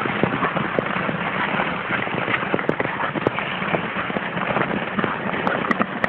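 Tour skate blades scraping and gliding over ice, with frequent short clicks and taps from blades and ice poles striking the ice.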